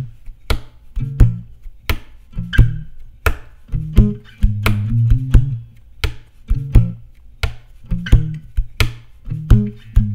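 Multitracked acoustic guitars playing an instrumental part: low plucked bass notes with a sharp percussive slap on the guitar about every two-thirds of a second, keeping a steady beat.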